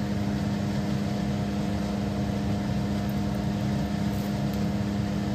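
Steady machine hum with a low rumble, holding one pitch throughout.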